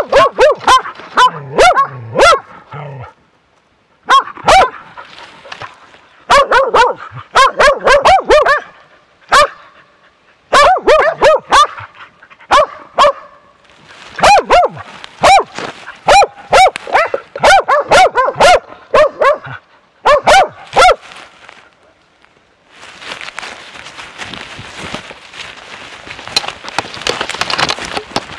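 Bear dog baying close to the microphone: bouts of loud, rapid barks a few seconds long, separated by short pauses. Near the end the barking stops and gives way to a steady rustling noise.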